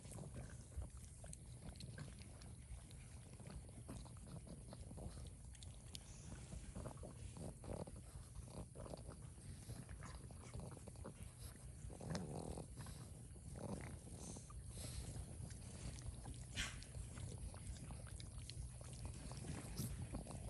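A Boston Terrier chewing and licking a slice of watermelon with the rind on: soft wet crunches and smacks, irregular and scattered, a little louder about twelve seconds in.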